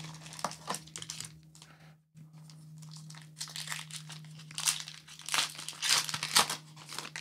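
Foil Pokémon booster pack wrapper crinkling in the hands as the pack is opened, a run of irregular crackles that get louder in the second half.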